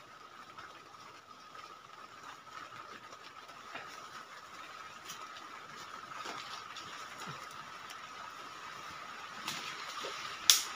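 Small creek water trickling while a person steps down a leafy bank and crouches at the water's edge, with scattered light footsteps and rustles. A faint steady high tone runs underneath, and a single sharp click, the loudest sound, comes near the end.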